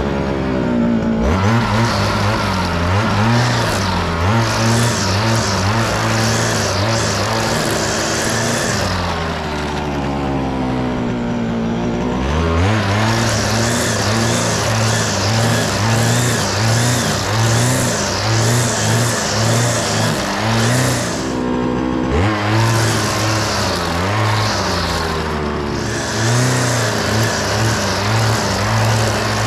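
String trimmer motor running at high speed while cutting long grass. It eases off and speeds back up about a third of the way in, then dips briefly twice more later on.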